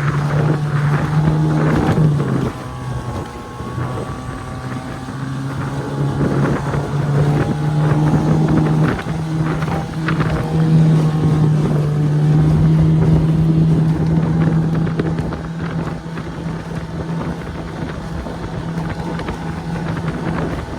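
Small outboard motor running steadily at high throttle, driving a dinghy along at speed, with wind buffeting the microphone.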